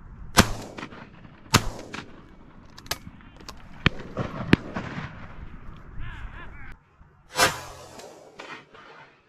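Shotguns firing at driven pheasants: about six shots at uneven intervals, some close and loud with a short echo, others fainter from further along the line.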